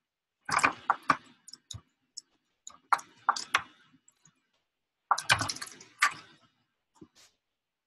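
Typing on a computer keyboard: three quick runs of keystrokes, then a couple of lighter taps near the end.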